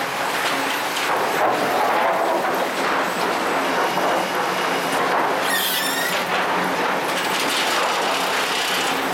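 Sawmill lumber stacking machine running, a steady dense mechanical noise as sawn boards are conveyed and stacked. A brief high, wavering squeal comes about five and a half seconds in.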